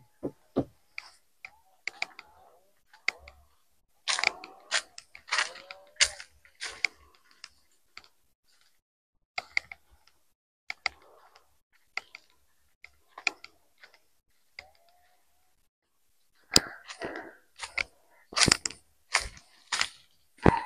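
Irregular footsteps crunching on dry leaf litter and stones along a hillside path, uneven in spacing and loudness.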